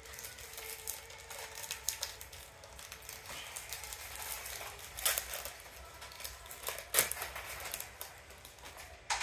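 Crinkling of an NBA Hoops trading-card pack wrapper and cards being handled: scattered light crackles, with two sharper snaps about five and seven seconds in.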